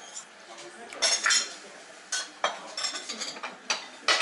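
Chopsticks clicking against ceramic tableware, a rice bowl and a plate, with the bowl knocking on the table: a run of short, sharp clinks and knocks, the sharpest one near the end.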